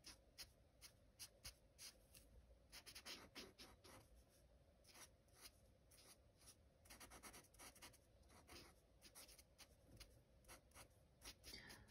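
Faint scratching of a felt-tip marker's tip rubbing on sketchbook paper as a tulip petal is coloured in, in a quick, irregular series of short strokes.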